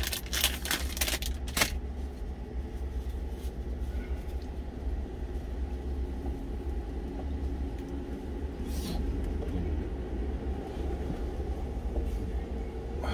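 Steady low vehicle rumble heard inside a truck cab. A snack wrapper crinkles for the first second or two, and there is one short rustle about nine seconds in.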